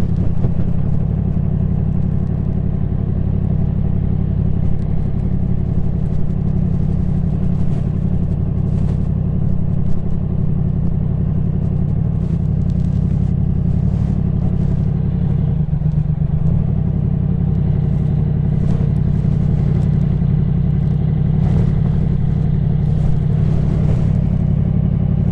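Yamaha MT-10 SP's crossplane inline-four engine running through its stock exhaust at a steady cruise, with the revs holding nearly constant.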